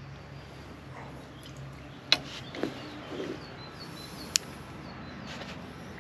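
Faint bird chirps over a steady low outdoor hush, broken by two sharp clicks about two and four seconds in, with a few softer knocks between them.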